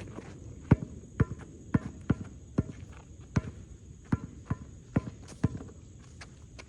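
A basketball being dribbled, bouncing about twice a second in a slightly uneven rhythm.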